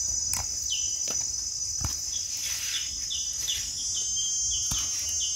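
Steady high-pitched drone of forest insects, with a run of short repeated chirps from about a second in and a few faint clicks.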